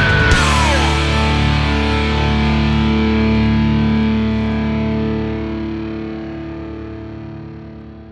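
Rock song ending on a distorted electric guitar chord. The chord is struck just after a last busy flourish, held ringing, then fades out slowly over the final few seconds.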